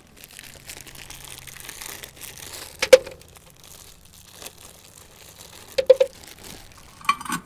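Plastic zip-top bag crinkling as butter is squeezed out of it, with a few sharp clicks or taps: the loudest about three seconds in, and a couple more about six and seven seconds in.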